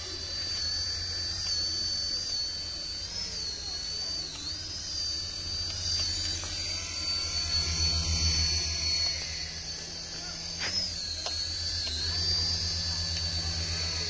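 HX708 toy RC helicopter hovering: its small electric motors give a steady high whine that dips and recovers briefly a few times as the throttle changes, over a low fluttering buzz from the coaxial rotor blades, loudest about eight seconds in.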